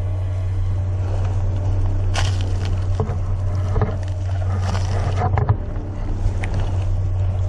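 Dry leaf litter and brush rustling and crunching in several short bursts as someone moves on foot, over a steady low rumble.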